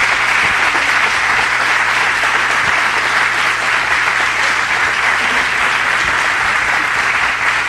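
Audience applauding: a steady round of clapping from a large crowd.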